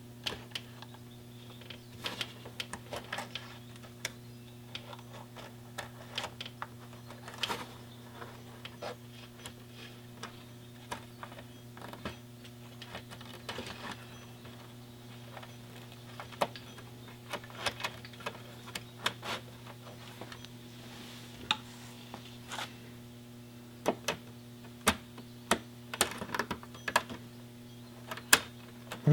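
Small metal and plastic parts of a throttle cable distribution box being handled and fitted by hand: irregular light clicks and taps as the cable, slide and spring are worked into place, over a steady low hum.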